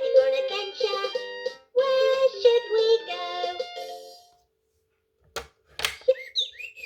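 A VTech Pop-Up Friends Train toy playing a children's electronic tune through its small speaker, stopping about four seconds in. After a short pause come two sharp clicks, then short gliding, chirp-like tones near the end.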